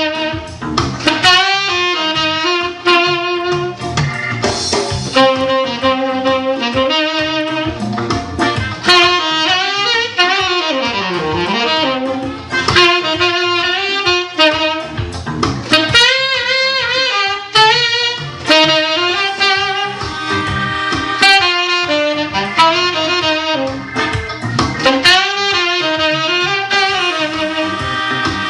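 Saxophone playing a jazz melody with vibrato over a backing track with a steady beat.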